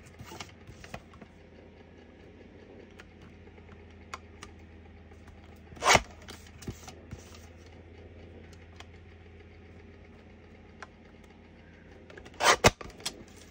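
Small clicks and taps of craft pieces being handled on a tabletop, with louder sharp clacks once about six seconds in and again twice near the end, over a steady low hum.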